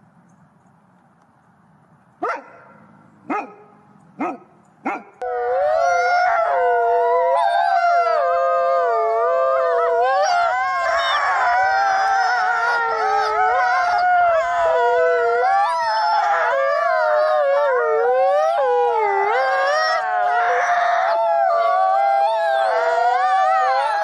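A gray wolf pack howling in chorus: many voices overlapping and wavering up and down in pitch over one long, steady held note. It opens with four short yips a couple of seconds in, and the chorus cuts off abruptly at the end.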